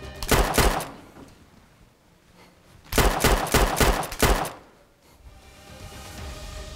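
Pistol gunfire in two bursts: a few quick shots right at the start, then after a short pause a longer rapid volley of about eight shots.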